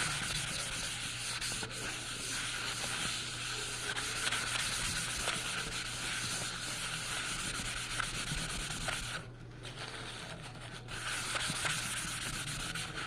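Steady scratchy rubbing of a drawing tool being worked across paper, over a low electrical hum. The rubbing pauses for about a second and a half a little past the middle, then resumes.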